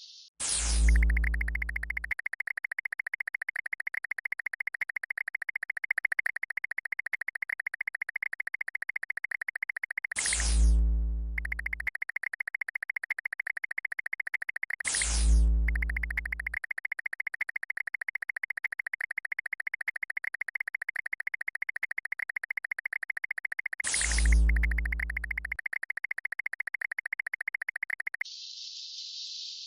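Synthesized electronic sound effect for a cat laser-pointer game: a rapid, steady buzzing tone, broken four times by a fast falling zap that ends in a low boom. It cuts off suddenly near the end.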